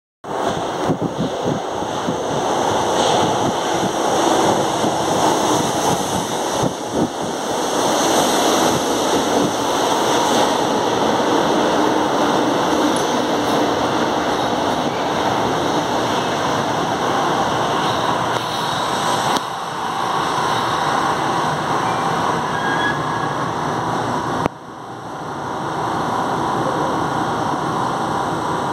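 São Paulo Metro Line 1 train running into an underground station, with wheels and running gear clattering loudly as it passes, then slowing to a stop. The level drops suddenly about three-quarters of the way through.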